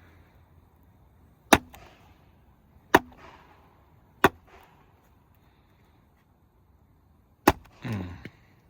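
Firewood being chopped: four sharp blade strikes into wood, irregularly spaced, the last three seconds after the third.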